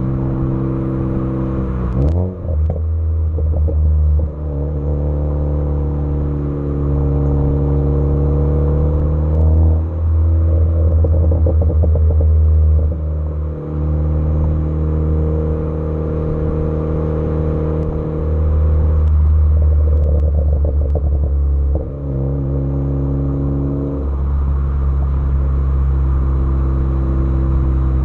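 Tuned Ford Focus ST engine and exhaust running, the engine note holding steady and then stepping to a new pitch several times, with a short rev about two seconds in. Brief crackles come from the exhaust at a few of the changes, the overrun crackle that the tune is set up to give.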